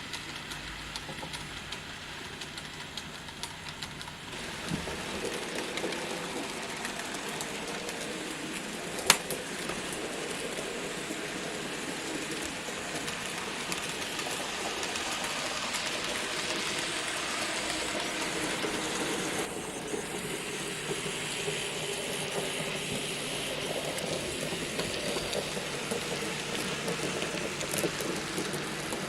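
N gauge model trains running round the layout: a steady rolling rattle of small wheels on the track and the whirr of the locomotive motor, with one sharp click about nine seconds in.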